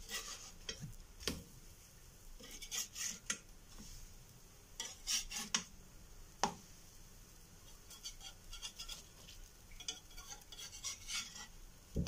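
Metal spatula scraping and tapping against a multi-well pancake pan as pancakes are lifted and turned, in scattered clicks and short scrapes.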